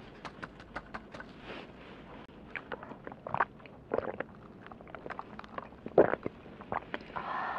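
Close-miked drinking through a straw from a paper cup: a run of small clicks, then several short swallowing gulps, the loudest about six seconds in.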